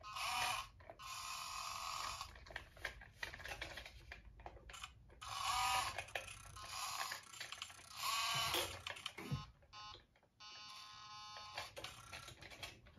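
A 1:87 scale micro RC truck driving in short stop-start bursts, the whir of its tiny drive motor and gears mixed with sounds from its built-in sound module through a tiny speaker. Near the end there is a buzzy electronic tone.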